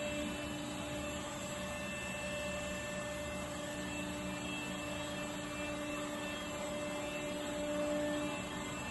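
Hydraulic cylinder repair stand running with a steady hum from its hydraulic drive, turning the cylinder. The main hum tone fades out shortly before the end.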